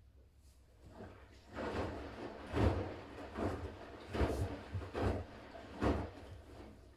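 Siemens iQ500 front-loading washing machine tumbling in the main wash, laundry and water swishing and thudding in several surges as the drum turns, dying away about six seconds in.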